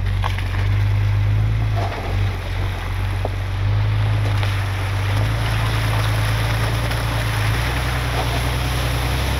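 A vehicle engine droning steadily while driving, with tyre and road noise, heard from inside the cab. The low engine note shifts slightly about halfway through.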